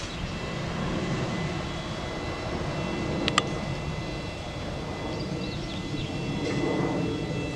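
TGM6D diesel-hydraulic shunting locomotive running, a steady engine drone as it slowly moves wagons along the track, with faint steady high whines. A single sharp metallic clank a little over three seconds in.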